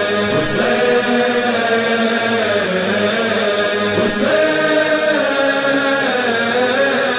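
Intro music of sustained, chant-like voices held over a steady drone, with slow pitch bends. Two brief high swoosh effects come through, one about half a second in and one around four seconds.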